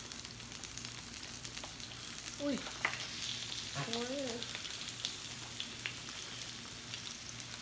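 Pork, shrimp and other meat sizzling on a round Korean BBQ grill plate ringing a hot pot: a steady fizzing hiss dotted with small crackles and pops. Two short hummed murmurs from a diner come a few seconds in.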